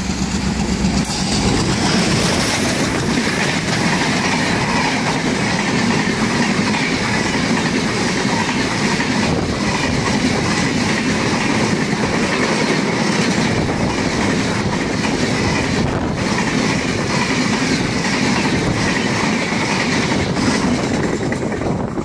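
Passenger train running at speed across a railway bridge, passing close by: a steady rumble of wheels on rails with a quick clickety-clack, kept up as coach after coach goes past.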